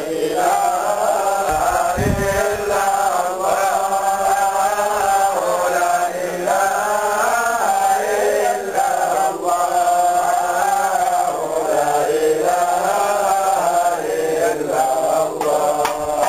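Male chanting of Islamic dhikr: a steady, repeated melodic vocal line.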